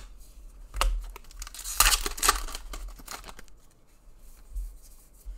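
A stack of rugby league trading cards handled and flicked through: papery rustles and the slap and slide of card against card, busiest about two seconds in.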